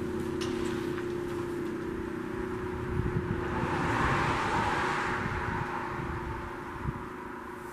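A vehicle passing by on the road: its noise swells to a peak about four seconds in and then fades, over a steady low hum.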